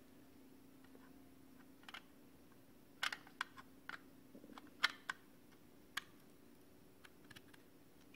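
Small plastic clicks and taps as a Samsung 860 EVO SSD's SATA connector is fitted into a white SATA-to-USB 3.0 adapter: a few sharp clicks from about three seconds in, the loudest near five seconds. A faint steady hum runs underneath.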